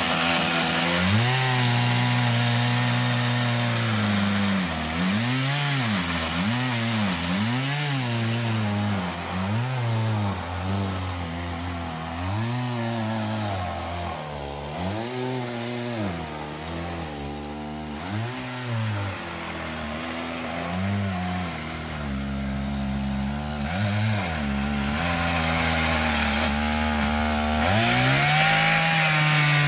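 Stihl MS880 chainsaw, a large two-stroke saw, running while cutting slabs from a big willow log. The engine pitch repeatedly dips and recovers as the bar works in the cut, then runs steadier and lower for a few seconds before rising again near the end.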